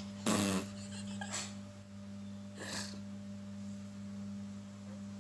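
A baby boy's short, breathy fake coughs: a strong one at the start, a weaker one about a second later, and another near the three-second mark, over a steady low electrical hum.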